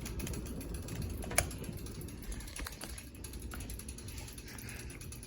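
Hunter Westminster ceiling fan running, its motor giving a steady low hum with scattered light ticking and one sharp click about a second and a half in.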